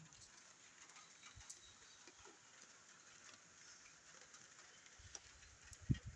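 Near silence: faint hiss, with a few soft low thumps near the end, the loudest about six seconds in.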